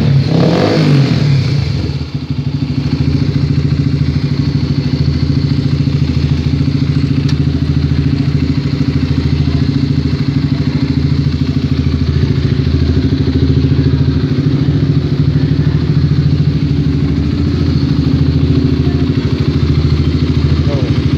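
Honda CBR150R single-cylinder engine running through a DBS Thailand racing exhaust. It settles down from a brief rev over the first two seconds, then idles evenly.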